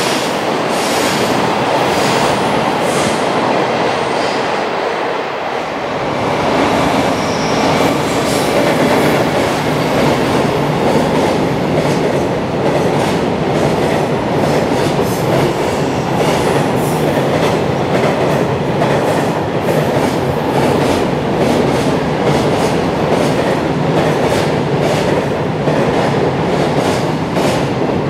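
Long freight train running past at speed: a steady rumble of steel wheels with a clickety-clack of the wagons' wheels crossing rail joints. The sound grows deeper about five seconds in.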